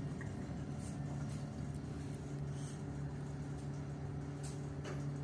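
Inside a tram on the move: a steady low electrical hum over rolling rumble, with a couple of light knocks near the end.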